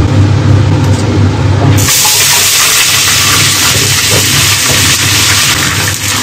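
Blanched beef bones going into a hot wok of oil and sugar caramel, sizzling loudly with a steady hiss of steam that starts suddenly about two seconds in. A low hum sounds before the sizzle starts.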